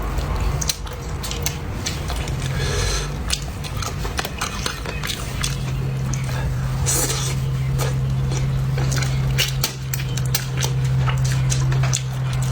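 A person eating braised fish: chewing, with frequent light clicks of utensils against a dish, over a steady low hum.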